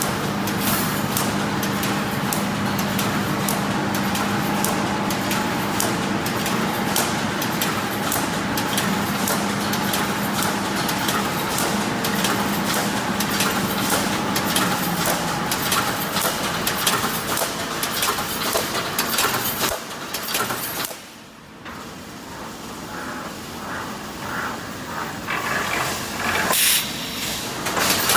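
Automatic wire mesh welding machine running: a dense clatter of rapid clicks and knocks over a steady hum. The hum fades out about halfway through, and the noise dips sharply about three quarters of the way in, then resumes more quietly.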